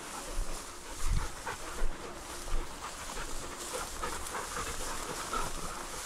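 Pointing Labrador retriever panting hard as it hunts.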